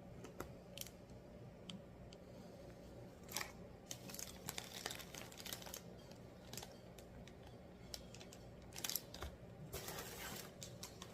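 Plastic packaging crinkling and rustling as it is handled, in irregular short bursts with small clicks, over a faint steady hum.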